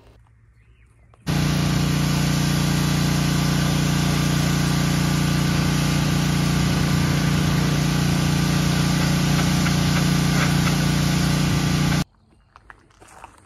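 A motor-driven machine running loudly and steadily at one constant pitch. It starts abruptly about a second in and cuts off abruptly near the end.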